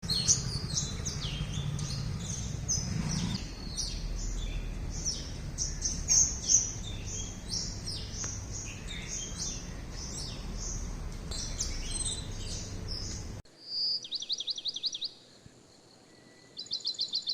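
Several small songbirds chirping and singing over one another in a busy morning chorus, over a low steady rumble. After a sudden cut, a bird gives a rapid trill of fast repeated high notes, then another near the end.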